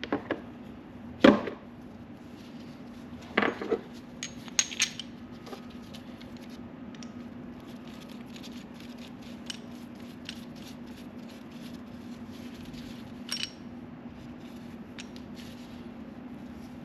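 Metal race driver discs and bearing-race parts clinking and knocking as they are picked up and set down: one sharp knock about a second in, a cluster of clinks a few seconds later, and scattered light ticks, over a steady low hum.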